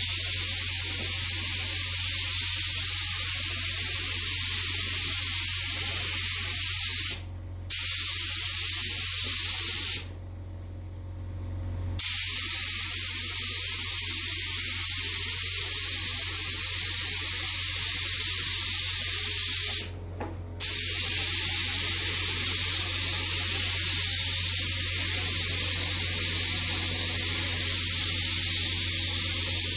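Paint spraying in a steady hiss, broken three times: briefly about seven seconds in, for about two seconds about ten seconds in, and briefly again about twenty seconds in. A steady low hum runs underneath.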